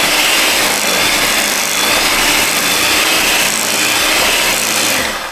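Electric hand mixer running, its beaters churning thick cream cheese in a glass bowl with a steady whirring, switched off about five seconds in.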